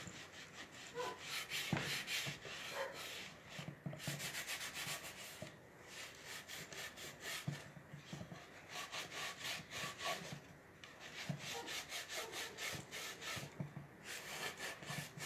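Sanding block rubbed back and forth over white-painted wood in quick scratchy strokes, several a second, with short pauses. The paint is being scuffed off the edges to distress it, so the piece looks old and chipped.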